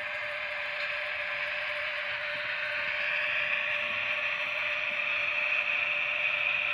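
Märklin HO model train running along the track: a steady mechanical whir of the locomotive's motor and the wagons' wheels rolling over the rails, with a steady whine underneath, growing a little louder.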